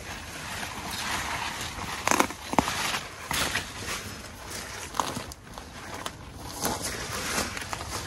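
Footsteps and rustling through garden vegetation, with a few sharp clicks scattered through.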